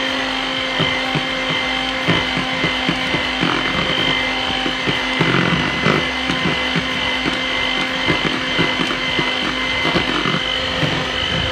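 Electric hand mixer running steadily at low speed with a fixed-pitch motor hum and high whine, beating flour into thick sponge cake batter. Its beaters clatter irregularly against the glass bowl.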